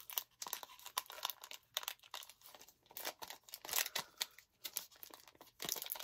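Foil wrapper of a Pokémon trading card booster pack crinkling and tearing in irregular crackles as it is worked open by hand. The pack is stiff and hard to tear.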